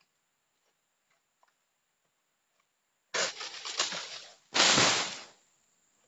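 A cut oil palm frond crashing down through the palm leaves with a crackling rustle for about a second and a half, then a louder, heavier crash as it hits the ground.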